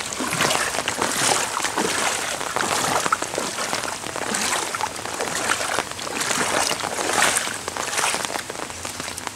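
Footsteps wading through shallow floodwater on a road, a slosh with each step every second or so, over the steady hiss of rain falling on the water.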